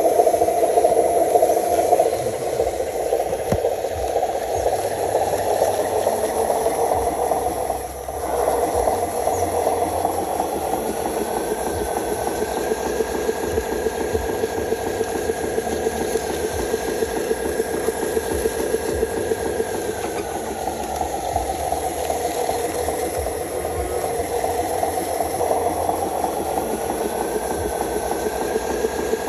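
Radio-controlled model vehicle's small electric motor and gears running with a fast rattle, the whine rising in pitch about a third of the way in, falling again after the middle and rising once more near the end as the speed changes.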